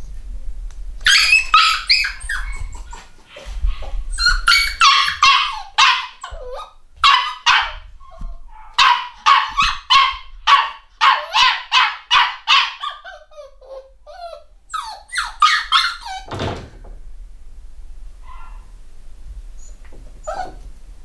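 Eight-week-old black cockapoo puppy yelping and whining in a rapid string of short high-pitched calls, which stops with a falling cry after about sixteen seconds; a couple of faint yips follow near the end.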